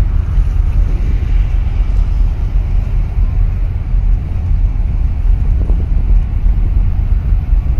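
Wind buffeting the microphone in a steady low rumble, over the wash of choppy harbour water.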